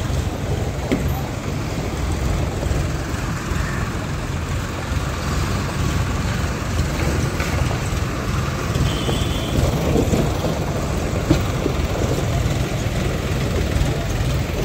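Diesel engine of heavy earthmoving machinery running steadily with a low rumble, and a few short knocks.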